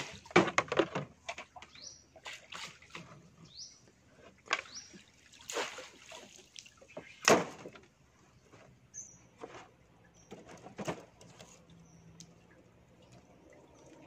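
Water sloshing and splashing with irregular knocks and clatter as crab traps are lifted from the water and handled; the loudest knock comes a little past the middle. A few short rising chirps sound in the first few seconds.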